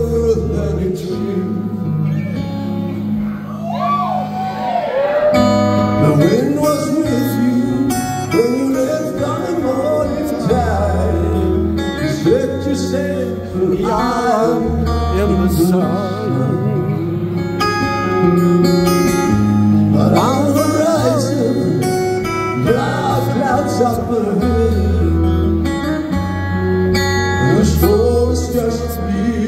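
Live rock ballad: a singer's voice over chords on a double-neck electric guitar, with deep sustained bass notes underneath.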